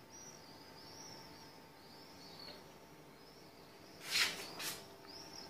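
Quiet outdoor ambience with faint, thin high chirps repeating, each a short rise-and-fall. About four seconds in come two short rustling noises close by.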